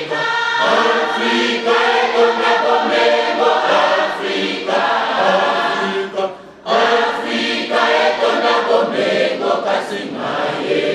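Mixed choir of men's and women's voices singing together, with a short break between phrases about six seconds in.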